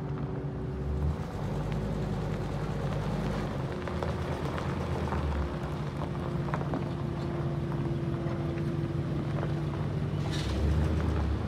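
Ford E-450 Super Duty box truck's V10 engine running steadily at low speed as the truck rolls across gravel, with scattered crunches from the tyres on the stones. The sound gets briefly louder near the end.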